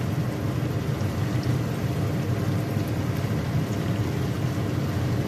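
Chicken pieces frying in oil in a nonstick pan: a steady sizzle over a continuous low hum.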